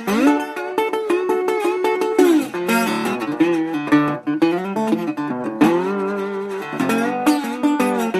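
Guitar played with a slide: plucked notes with repeated glides up and down in pitch between them.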